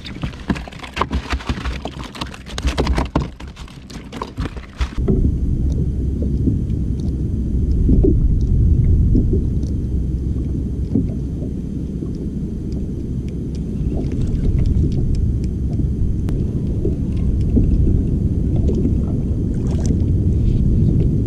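Splashing and sharp clattering for about five seconds as fish on the line are pulled out of the water. Then a sudden switch to a steady low rumble of wind buffeting the microphone.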